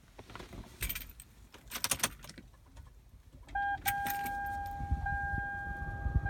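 Car keys jangling in two short bursts. From about three and a half seconds in, a steady electronic tone sounds, with a brief break just after it starts, over a low rumble.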